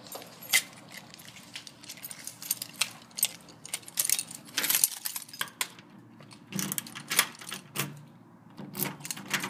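A bunch of keys jangling and clicking against a front door's brass deadbolt and knob lock as the door is locked: a run of short metallic clicks and jingles, busiest about halfway through.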